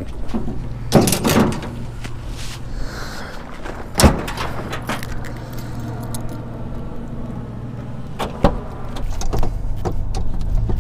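Car keys jangling and several sharp clicks and knocks, the loudest about four seconds in, over a steady low hum of a car.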